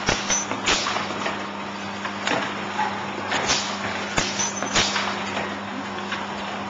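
A box gluing machine for corrugated boxes with self-locking bottoms runs with a steady hum, over irregular sharp knocks and slaps as flat corrugated cardboard boxes are handled and moved through it.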